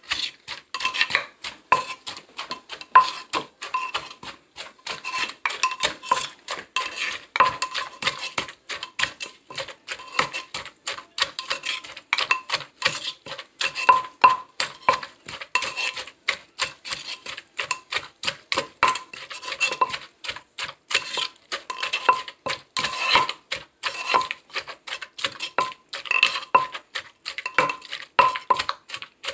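Wooden pestle pounding shredded green papaya for som tum in a clay mortar: quick, steady knocks, about two to three a second, with a metal spoon clinking against the mortar between strokes.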